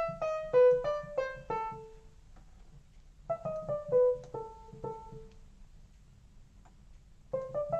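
Behringer Crave single-oscillator analog synth playing a piano-like patch: fast attack and a decaying, percussive envelope, so each note is struck and fades away. A quick run of about eight notes, then a second phrase of about five, a pause, and more notes starting near the end.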